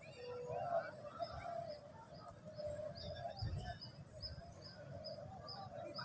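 Many caged spotted doves (derkuku) cooing together in a continuous, overlapping chorus. From about halfway, short high chirps repeat about three times a second over the cooing.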